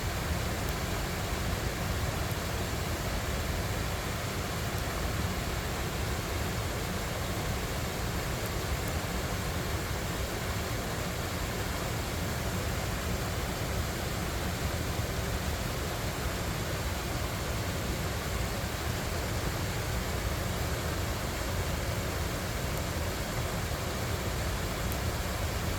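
Creek waterfall rushing steadily, a constant, unbroken wash of falling water.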